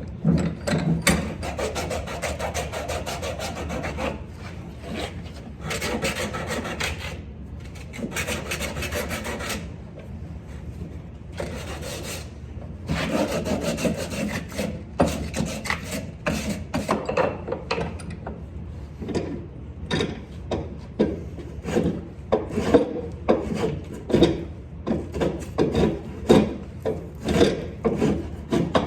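Hand abrading of the vise jaws' sharp edges: repeated scraping back-and-forth strokes. Long stretches of strokes with brief pauses give way, past the halfway mark, to shorter, quicker strokes, about one or two a second.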